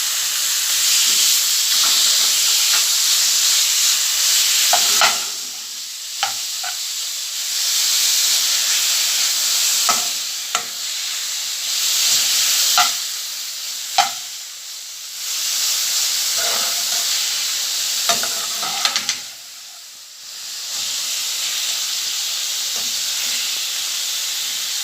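Minced meat sizzling as it fries in oil with onions and pepper, being stirred. The sizzle swells and dies down in stretches, with sharp clicks now and then, most around the middle, as the stirring utensil strikes the pan.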